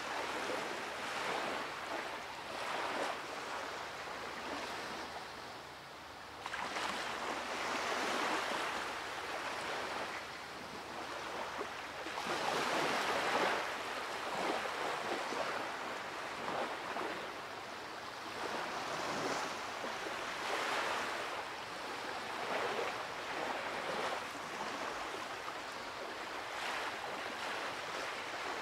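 Ocean surf washing in, swelling and fading every few seconds.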